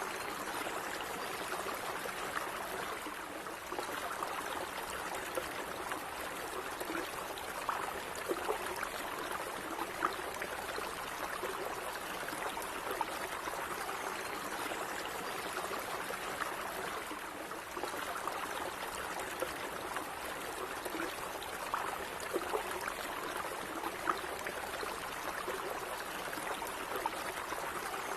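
Gently running stream water, a steady trickling and babbling with many small splashes and gurgles.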